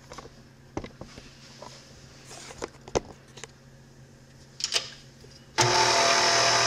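A few light knocks and clicks, then about five and a half seconds in a KitchenAid Artisan stand mixer switches on. Its motor runs with a steady whine as the dough hook starts mixing the bagel dough.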